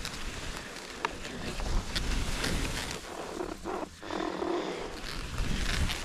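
Skis scraping over firm, tracked snow on a downhill run, with wind rumbling on the microphone and a few sharp clicks. The sound thins out briefly about three and a half seconds in.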